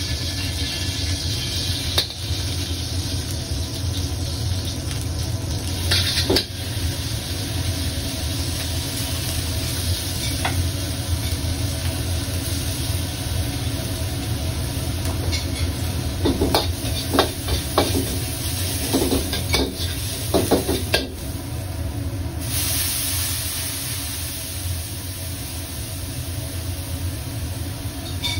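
Aromatics and black pepper sizzling in oil in a wok over a gas wok burner that runs with a steady low roar. A metal ladle clanks and scrapes against the wok now and then, in a quick cluster of strikes about two-thirds of the way through. The sizzling hiss grows louder for the last few seconds.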